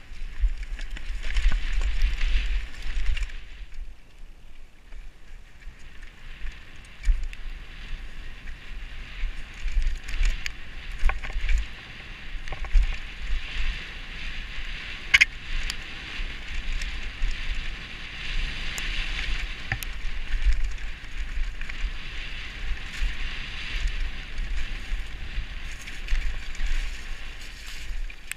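Mountain bike descending a rough dirt trail, heard from a helmet-mounted camera: wind buffeting the microphone over a steady rush of tyres on dirt, with scattered clicks and knocks from the bike over bumps and roots. The sound eases briefly about four seconds in, and there is one sharp knock about fifteen seconds in.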